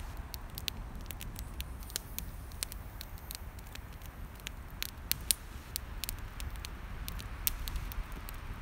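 Wood campfire crackling, with irregular sharp pops and snaps over a low steady rumble; a few louder pops stand out about five seconds in and near the end.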